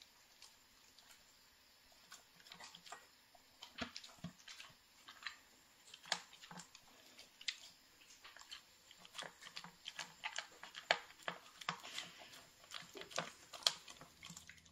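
Pungsan dog eating kibble mixed with crumbled tofu and sweet potato cake from a stainless steel bowl: irregular crunching and clicking chews, sparse at first and more frequent from about two seconds in.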